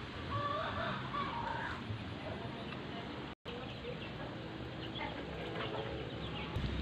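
Chickens clucking, with short calls clustered in the first two seconds over a steady outdoor background. The sound cuts out for a split second about halfway through.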